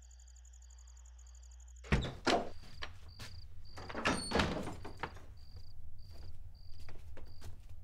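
A low steady drone with crickets chirping. About two seconds in it gives way to a run of knocks and rattles of a door being handled, over a cricket chirping a little under twice a second.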